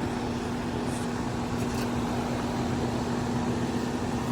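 2017 Ducane central air conditioner's outdoor condensing unit running steadily: the scroll compressor's even hum over the whoosh of the condenser fan.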